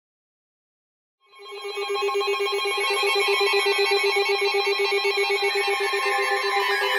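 Emergency alert attention signal: a loud, bell-like electronic ringing that starts about a second in, many pitches sounding together with a fast flutter, announcing a weather warning.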